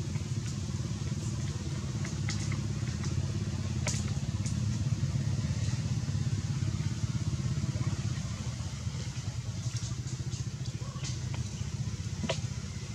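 Steady low rumble of an engine running, with a few faint scattered clicks.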